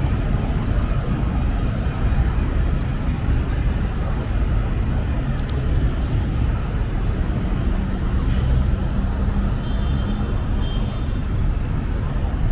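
Steady low vehicle rumble, with faint high tones a little before the end.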